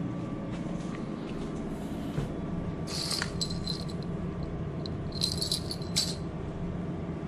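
Fishing rod bite-alarm bells, a pair of small metal bells on a clip, jingling in two short bursts, about three seconds in and again about five seconds in.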